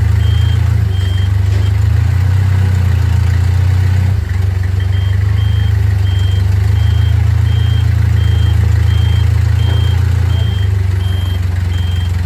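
A vehicle engine idling with a steady deep hum, while an electronic warning beeper, like a reversing alarm, sounds about one to two times a second; the beeping stops for about three seconds shortly after the start, then resumes.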